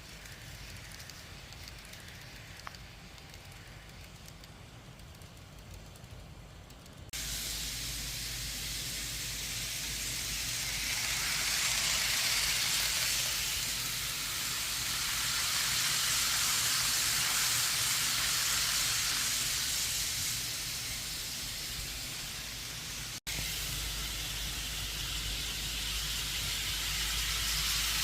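Model trains running on the track: a low hum and rushing noise that starts suddenly about seven seconds in, then swells and fades twice, with a brief dropout near the end.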